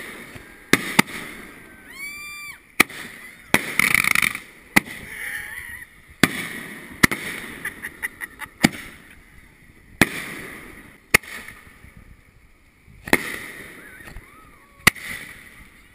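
Aerial fireworks going off: a string of sharp bangs, more than a dozen, spaced irregularly, some with a short ringing tail.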